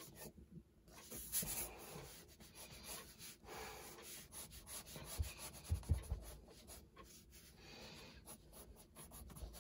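Red colored pencil scratching across toned sketchbook paper in quick, repeated shading strokes, with a few dull bumps around the middle.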